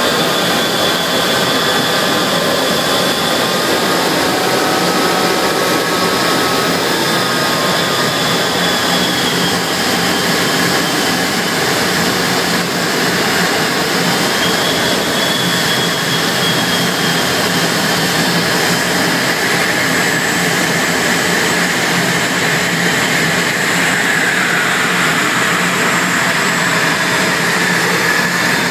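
Steady jet engine and airflow noise inside the rear cockpit of a Eurofighter Typhoon descending on approach to land, its twin EJ200 turbofans running with faint whine tones drifting above the rush.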